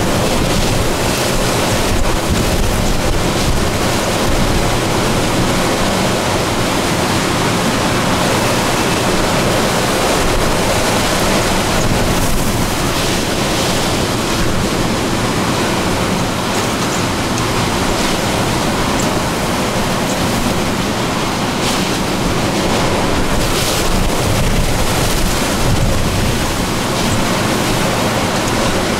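Hurricane Ida's wind and rain: a loud, steady rush of noise that swells a little at times, with wind hitting the microphone.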